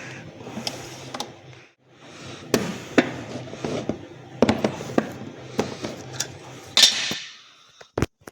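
Bauknecht WAS 1400 washing machine running: a low motor hum that stops briefly about two seconds in and starts again, with repeated knocks and clunks from the machine, then stops near the end with a loud thump.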